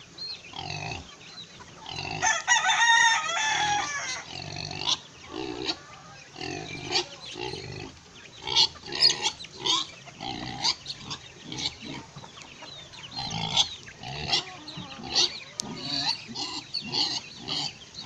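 Backyard chickens clucking and young chicks giving many short high peeps, with a rooster crowing once about two seconds in, the loudest sound.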